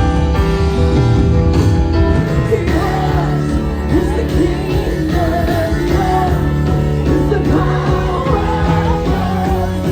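Music with a band playing, and a voice singing from about two and a half seconds in.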